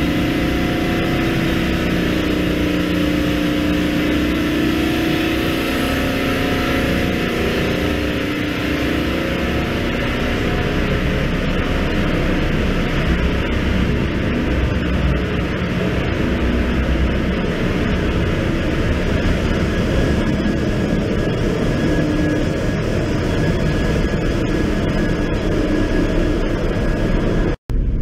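Loud, steady drone of running machinery in a cargo ship's engine room, starting with the accommodation air-conditioning compressor and its motor. A pitched hum stands out over the first several seconds, then fades into the general machinery noise. The sound cuts out for an instant near the end.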